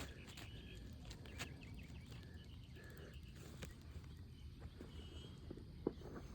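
Quiet outdoor ambience: a steady low wind rumble with a few faint taps, and faint short bird chirps now and then.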